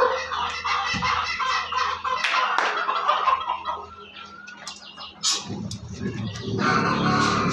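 Chickens clucking and calling in short, scattered notes, with a low rushing noise joining in for the last two seconds.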